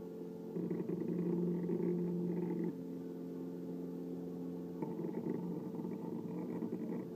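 Sumpod Basic 3D printer's stepper motors humming in steady, pitched tones while it prints. The motors grow louder during two stretches of movement of about two seconds each, and a quieter hum runs between them.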